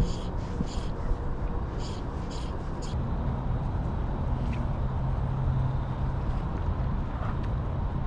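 Outdoor background with a run of short, evenly spaced high pulses in the first three seconds. A low engine hum of a passing vehicle then comes in about three seconds in, swells, and fades toward the end.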